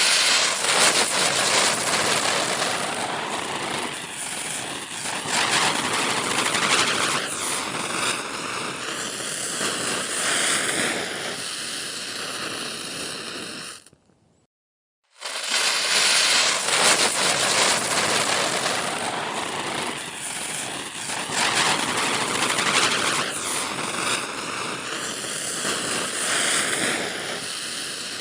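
Diwali ground-spinner firecracker (chakri) burning: a loud, steady hissing rush of sparks, with wavering whistling tones later on. It cuts off about halfway, goes silent for about a second, then starts again and burns the same way.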